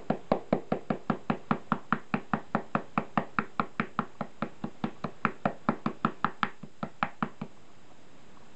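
An ink brush dabbed rapidly and repeatedly onto a shikishi board to stipple on green grass clumps. It makes a quick, even run of light taps, about five a second, which stops about seven and a half seconds in.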